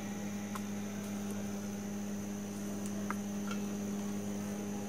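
A steady low hum throughout, with a few faint light clicks as food is laid into a pressure cooker.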